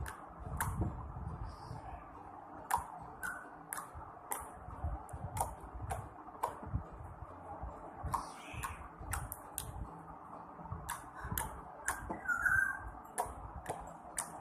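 Blue slime being squeezed and stretched by hand, making irregular sharp clicks and pops, about one or two a second.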